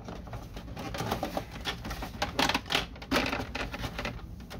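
Plastic clicks, rattles and scrapes as the top scanner housing of an Epson WF-2630 printer is worked loose by hand and slid sideways off its catch. The clicks come in a quick irregular run, busiest in the middle.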